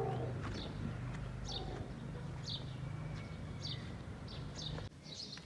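A bird calling a short, high, falling chirp about once a second, over a steady low hum that cuts off abruptly near the end.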